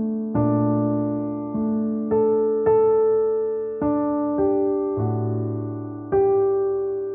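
Slow, soft piano music. Single notes and chords are struck about once a second and left to ring and fade, over low bass notes.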